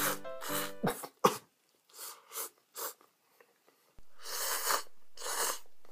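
A person slurping cold soba noodles dipped in tsuyu: a series of short, noisy slurps, then two longer slurps near the end.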